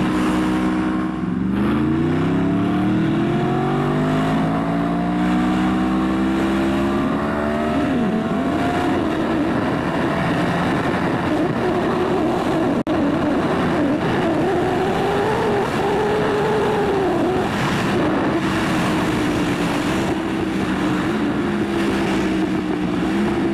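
2018 Yamaha R1's crossplane inline-four, ECU flashed and catalytic converter deleted, running through a Graves carbon slip-on while riding. The engine note climbs steadily for the first several seconds as the bike accelerates, then holds near a steady cruising pitch with small rises and falls, under constant wind noise.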